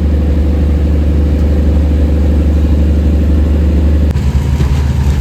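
A motor vehicle's engine running steadily with a low rumble; the sound shifts about four seconds in.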